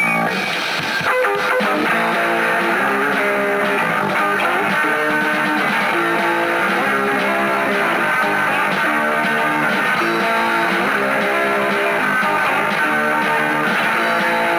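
Rock band playing, an electric guitar picking a short riff that repeats over and over.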